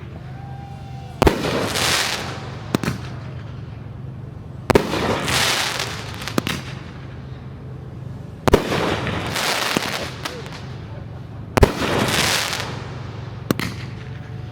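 Aerial fireworks shells bursting about every three seconds: four loud bangs, each trailing off in about a second of crackling, with single smaller pops in between.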